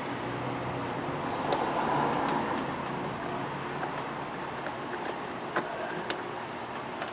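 Scattered light clicks and taps of a hand tool working the bottom fastener of a wiper motor cover, over steady background noise that swells louder for about a second, from about a second and a half in.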